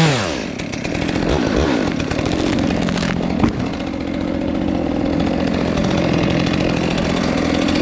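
Gasoline chainsaw engine falling in pitch from a rev, then running steadily at high speed, with one brief sharp tick about three and a half seconds in.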